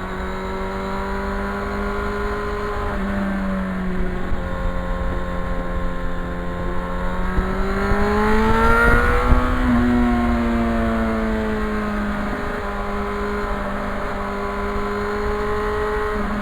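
Yamaha FZR motorcycle's inline-four engine running on the road, its note holding steady, then climbing about eight seconds in as the bike speeds up, and easing back down with a few changes in pitch where the rider shifts gear.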